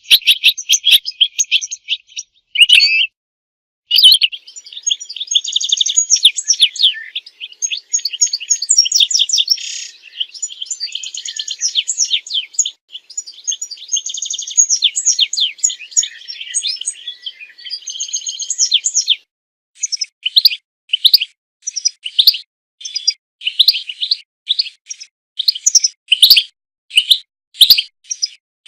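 European goldfinch singing a rapid, tinkling twittering song with brief gaps. About 20 s in it changes to a string of separate short notes, two or three a second.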